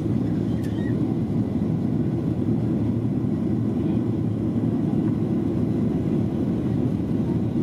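Steady cabin noise of a Boeing 737-700 in flight, heard from a window seat inside the passenger cabin: an even, low rumble of engines and airflow.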